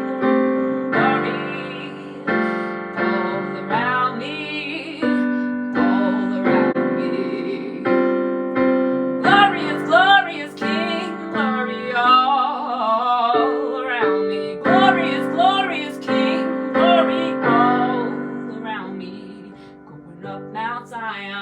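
Piano or electric keyboard playing slow held chords under a singer's wordless, wavering vocal runs, dying down near the end.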